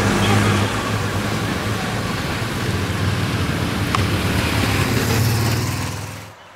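Old van's engine running steadily as it drives off, with one short click about four seconds in. The sound cuts off sharply near the end.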